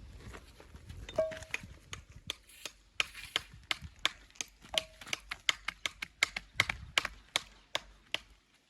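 Repeated sharp knocks of a walling hammer striking stone, irregular at about two or three a second, two of them leaving a brief ringing tone.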